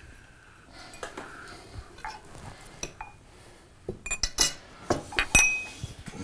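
Forks clinking against plates at a meal table: scattered light clicks and short ringing clinks, coming thicker in the second half.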